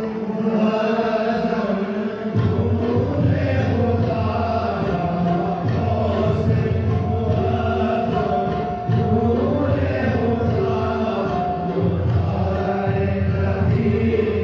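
Devotional chanting with music: voices on long held and sliding notes, with no break.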